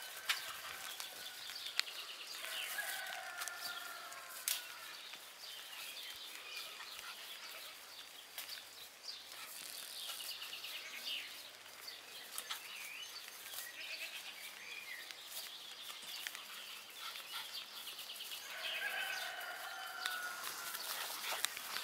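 Outdoor ambience with birds chirping, two drawn-out pitched animal calls, one about two and a half seconds in and one near the end, and a few sharp knocks.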